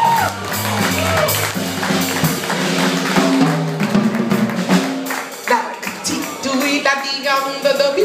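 Live jazz-soul band playing: sustained keyboard chords over drum kit and cymbal strikes, with a woman's voice singing in places, mostly in the second half.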